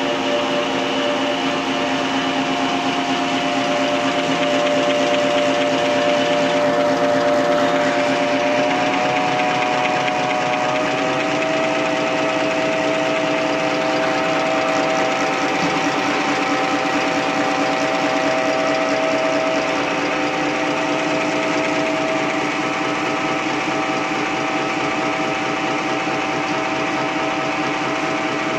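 XY OQ 7000A 300 mm table-napkin folding machine running steadily: a dense mechanical clatter under a whine of several held tones. The whine steps up slightly in pitch about nine seconds in and again about eleven seconds in.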